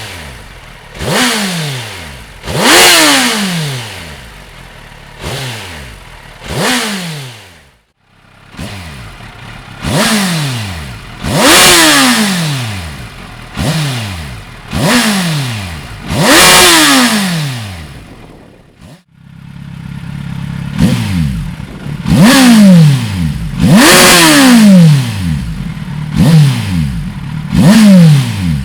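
Kawasaki Z1000SX inline-four engine revved through its exhaust in quick throttle blips, each shooting up sharply and falling back to idle, over a dozen times. The sound cuts out briefly twice, and in the last part a steady idle runs between the blips.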